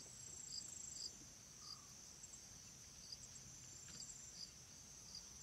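Faint insect chirping: a steady high trill with a short chirp repeating a little under twice a second.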